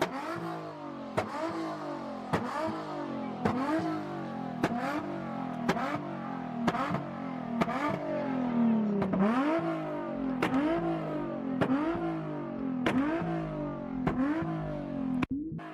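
Car engine revved hard over and over, about once a second. Each rev climbs and falls in pitch, with a sharp crack at every cycle.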